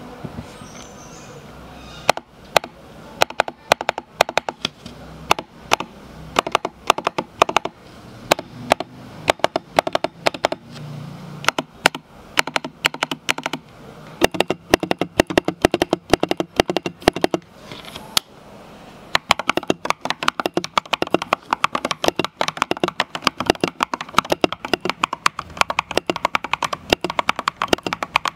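Typing on a MonsGeek MG108B full-size mechanical keyboard fitted with Akko Piano Pro switches, a sound test of its keystrokes. Bursts of key presses begin about two seconds in, and the typing becomes fast and nearly continuous in the second half.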